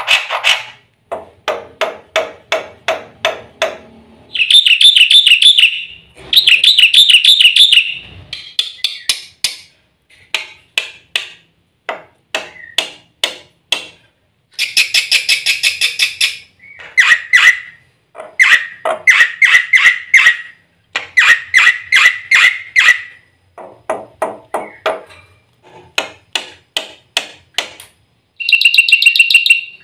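Black-winged myna (jalak putih) singing a long, varied song full of mimicked fill phrases: rapid runs of sharp chattering notes broken by several loud trilling phrases.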